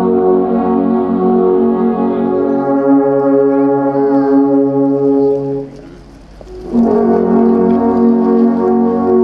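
Several alphorns playing together in sustained, held notes. The sound breaks off about five and a half seconds in and the horns come back in about a second later.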